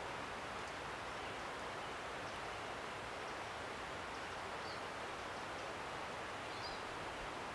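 Steady woodland background: an even rushing hiss, with two faint short high bird chirps, one about halfway through and one near the end.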